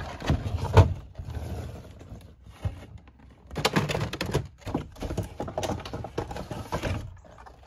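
A clear plastic blister shell being slid out of a cardboard toy box: plastic scraping and crinkling against cardboard, with small knocks, in two spells with a quieter rustle between.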